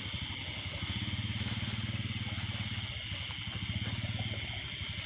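A steady night chorus of insects and frogs: high continuous trilling with a low, rapidly pulsing drone underneath.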